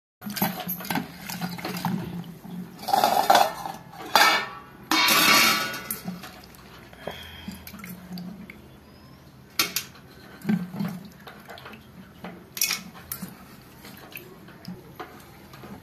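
Hands squeezing and swishing sliced bitter gourd in turmeric-and-salt water in a stainless steel bowl: wet squelching and splashing, loudest about 3 and 5 seconds in, with sharp clinks of the steel bowl around 10 and 13 seconds. The soaked gourd is being squeezed out to remove its bitterness.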